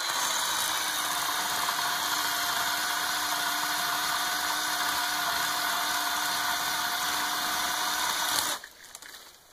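Ryobi One+ 18-volt battery-powered 10-inch electric chainsaw running steadily while its chain cuts through a dead cherry limb. It stops abruptly about eight and a half seconds in.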